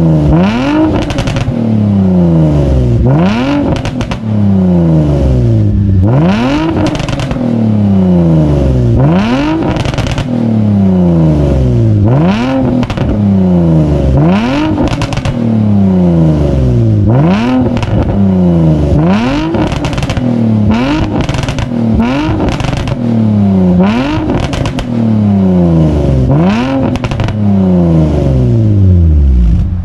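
Nissan 350Z's V6 engine revved through its exhaust again and again, about every two seconds, each rev climbing quickly and falling back more slowly, with sharp pops in among them.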